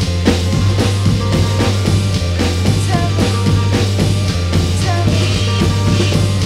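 Indie rock recording: a drum kit playing fast, busy hits over a steady low bass drone, with noisy electric guitar.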